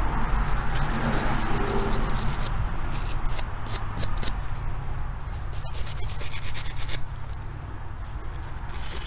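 Bronze brush scrubbing an oil-soaked steel part from a .22 rimfire rifle's blowback action, in quick bristly strokes that come in bursts with short pauses.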